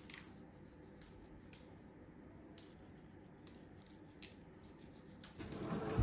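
Faint, sparse ticks of sesame seeds being sprinkled by hand onto dough rolls on a parchment-lined baking tray. A louder noise starts near the end.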